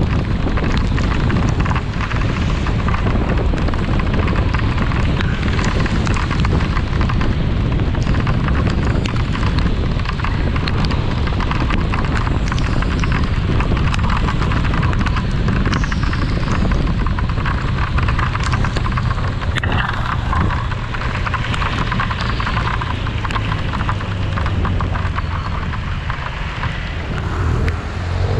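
Steady wind and road noise from a motor scooter on the move, recorded on a GoPro action camera, with a low engine rumble and a dense crackle of rain.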